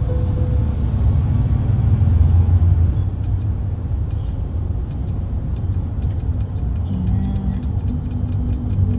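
Steady low rumble of a car's cabin on the move. From about three seconds in, a high electronic beep repeats, starting nearly a second apart and quickening to about four a second.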